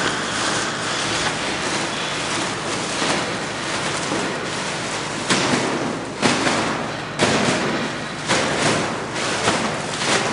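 A large plastic sack rustling as it is handled and swung, with several sudden thumps about a second apart in the second half.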